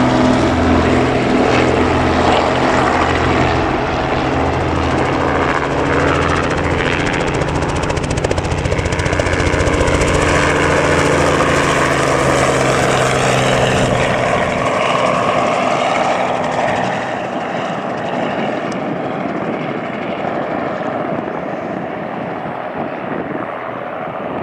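Robinson R44 helicopter's main rotor and piston engine flying by close, a steady rhythmic rotor beat. It fades away over the last ten seconds or so.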